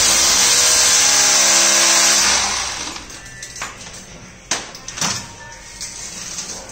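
A power tool's motor running at full speed for about two and a half seconds, then winding down. A few sharp knocks follow, the loudest about four and a half and five seconds in.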